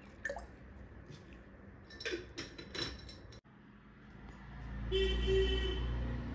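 A few clinks and knocks of a steel blender jar, then a low rumble that grows louder, with a brief steady hum at its loudest near the end.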